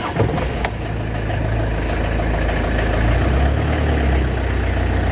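Tata Vista car engine starting and settling into a steady idle, with the bonnet open and the radiator cap off. It runs slightly unevenly, which the owner puts down to the intake air system being left open.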